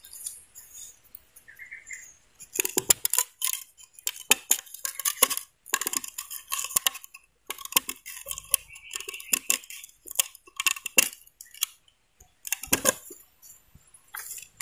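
A pisau raut carving knife cutting through a thin bamboo stick: irregular runs of sharp clicking knocks and scraping strokes, starting a couple of seconds in, with short pauses between runs.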